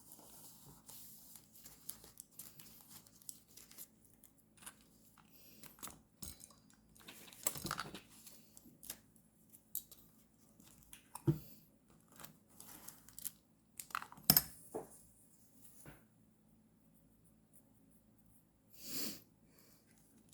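Paper being handled for journal decorating: rustling, crinkling and tearing, broken by sharp taps and clicks. The loudest are two clicks, about eleven and fourteen seconds in. A short rustling swell comes near the end, after a quiet pause.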